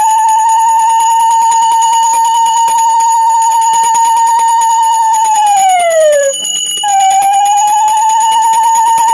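A conch shell blown in long, steady blasts. Near six seconds in the note sags in pitch as the breath runs out, and after a short break a second blast starts, with a bell ringing along with it.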